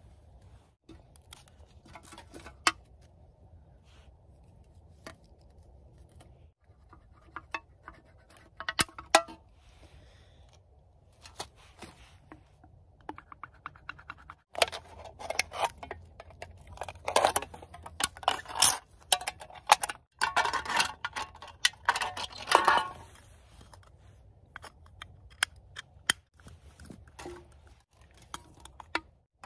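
Empty aluminium soda cans handled by hand: scattered light clicks and taps of thin can metal, with a longer stretch of scratching and crinkling about halfway through as a pencil marks a line around one can.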